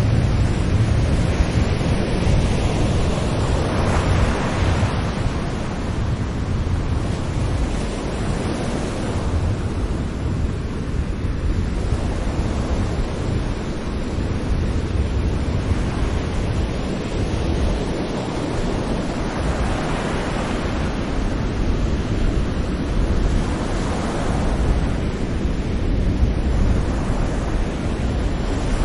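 Sea waves breaking gently on a beach and washing up the shore in a continuous surf, with slow swells as each wave comes in. The strongest swells come a few seconds in and about two-thirds of the way through.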